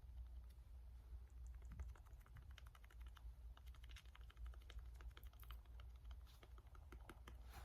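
A quick, irregular run of small, light clicks and taps, over a faint steady low hum.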